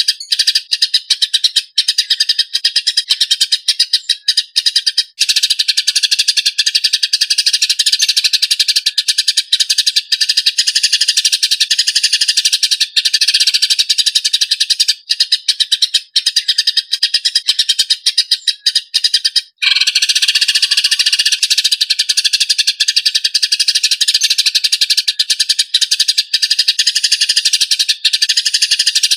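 Eurasian tree sparrows chattering in a fight: a loud, dense, rapid run of harsh chirps, broken off briefly about two-thirds of the way in.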